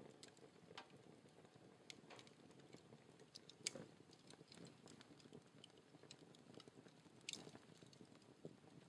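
Wood logs burning in a fireplace, crackling: irregular small pops and snaps over a soft low rush of flame. The loudest pop comes a little under four seconds in, and another sharp one a little after seven seconds.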